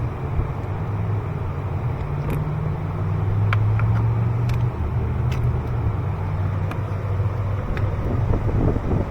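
A vehicle engine running steadily, its low hum shifting slightly in pitch, with a few faint clicks scattered through.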